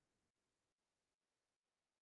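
Near silence, a dead gap in the audio.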